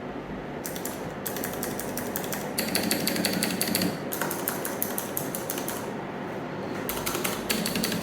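ROG Falchion mechanical keyboard being typed on fast, dense runs of key clacks in stretches with short pauses, its stabilizers freshly lubed with Permatex dielectric grease.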